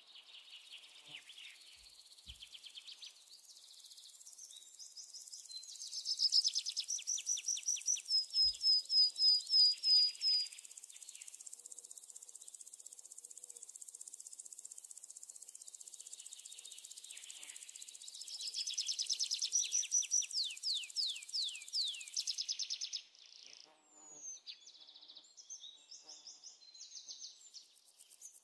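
Birds singing in rapid trills and series of quick down-slurred whistles, over a steady high insect buzz that stops about 22 seconds in.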